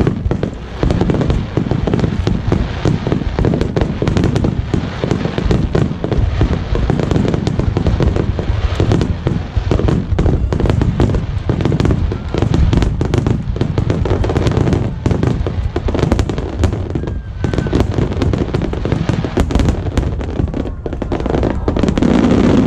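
Dense barrage of fireworks shells bursting, many sharp bangs overlapping into a continuous loud rumble.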